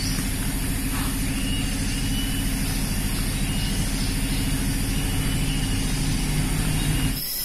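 Small motorcycle engine running at a steady low speed, a constant low drone that cuts off abruptly near the end.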